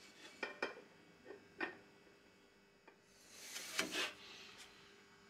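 Faint handling noise from hands fitting a spin-on oil filter by hand: a few light clicks and taps in the first second and a half, then a short soft rustle and scrape near the end.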